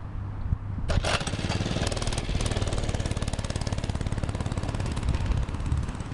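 Baja Doodle Bug mini bike's small single-cylinder four-stroke engine running hard close by, its rapid firing pulses rising sharply about a second in and easing off near the end as the bike passes.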